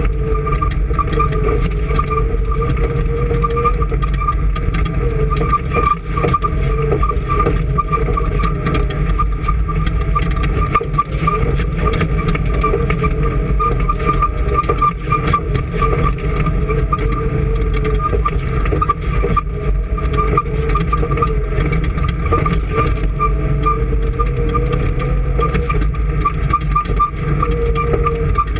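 An engine running steadily at an even speed, with no revving or changes in pitch.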